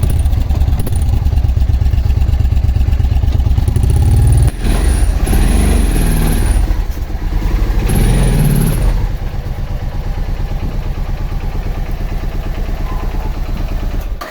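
Suzuki VX800 motorcycle's V-twin engine running with a rapid, even pulse, revved up and down about halfway through, then settling to a steady idle before stopping abruptly. The engine has a misfire in its rear cylinder.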